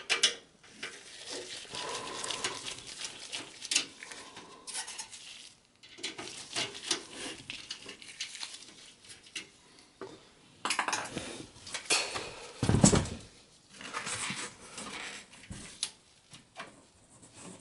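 Small clicks and scrapes of a screwdriver backing out a screw from the sheet-metal front port bracket of a desktop PC chassis, with thin metal parts clinking and scraping as the front panel is worked loose. There is a louder thump about 13 s in.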